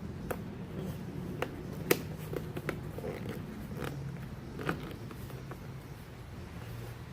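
Scattered sharp plastic clicks and knocks as the trunk's black trim piece and its fasteners are pushed into their holes, the loudest about two seconds in, over a low steady hum.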